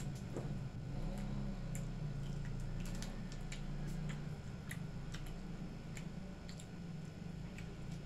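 People chewing and eating fried chicken and rice by hand: scattered short clicks of mouth and food-handling sounds over a steady low hum.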